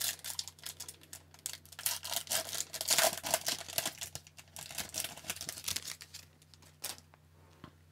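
Foil wrapper of a hockey card pack torn open and crinkled by hand as the cards are slid out. It is loudest about three seconds in and dies away about a second before the end.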